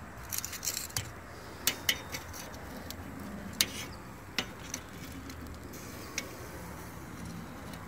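Metal tongs clicking against the grate of a charcoal kettle grill as chicken pieces are turned over: a quick run of light metallic clicks in the first second, then single clicks every second or so.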